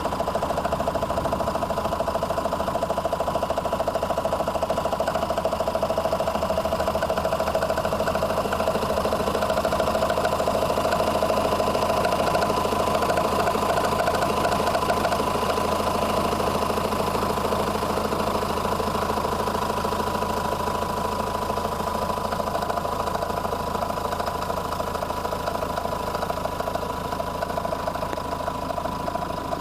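Renault Espace IV's 1.9 dCi four-cylinder turbodiesel idling steadily with a rattling noise, which the owner suspects comes from the auxiliary belt or its pulleys.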